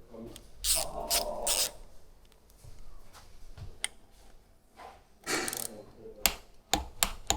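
Workshop handling noises from parts and tools: a couple of short scraping rustles and a scatter of sharp clicks, some of them ratchet-like.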